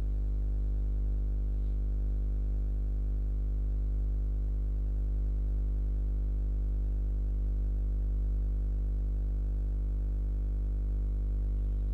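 Steady low electrical hum with a stack of evenly spaced overtones, unchanging in pitch and level: mains hum picked up by the recording microphone.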